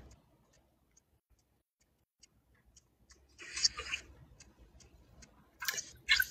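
Faint, even ticking, a few ticks a second, with a couple of short bursts of noise about halfway through and near the end.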